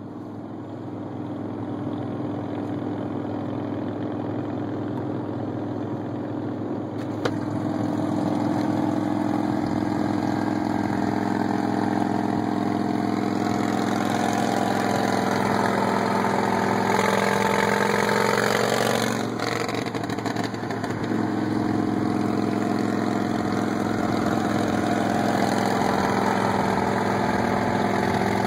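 Big Dog chopper's V-twin engine running alongside at highway speed, heard from inside a car cab with road and wind noise. About two-thirds of the way through, the engine pitch climbs and then drops suddenly, as in a gear change.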